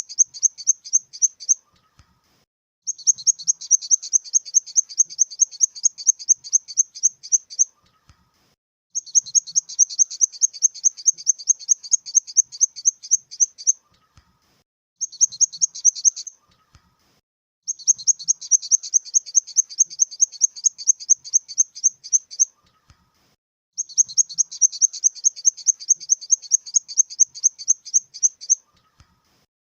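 Grasshopper stridulating: rapid high chirping pulses in runs of about five seconds, broken by pauses of about a second and repeating at an even rhythm, with one shorter run about halfway through.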